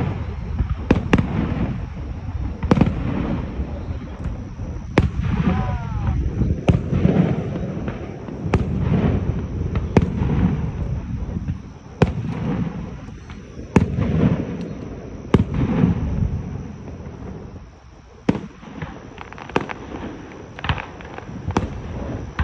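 Fireworks shells bursting, sharp bangs coming irregularly every second or two over a steady low rumble.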